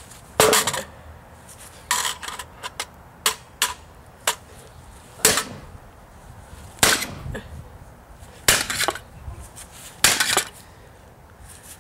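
A hammer striking an old floppy disk drive repeatedly to smash it open. There are about seven hard, sharp blows spaced a second or two apart, with lighter knocks and rattles between them.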